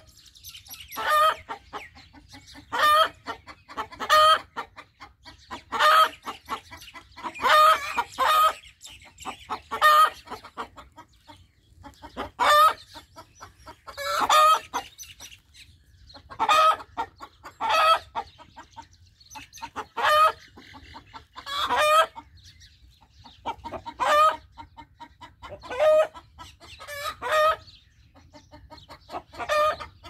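Rooster giving short, loud calls over and over, about one every one and a half to two seconds, some coming in close pairs.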